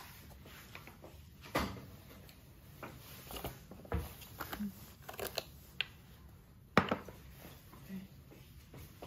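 Scattered sharp clicks and knocks of a drinking glass, a drink sachet and foil packaging being handled on a kitchen countertop, the loudest knock a little past two-thirds of the way through.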